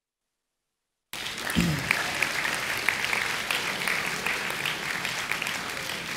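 About a second of silence, then an audience applauding: many hands clapping steadily.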